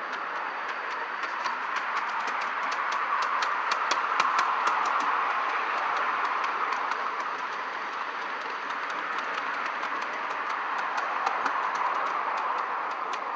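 Live-steam miniature ride-on train running along its track: a steady rushing with many sharp clicks of the wheels over the rails, loudest around the middle.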